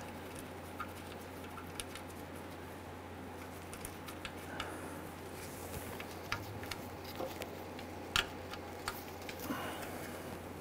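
Light, scattered clicks and ticks of metal being handled as a small bolt is threaded by hand into an ABS wheel-speed sensor on a rear axle housing, the sharpest click about eight seconds in. A faint steady hum sits underneath.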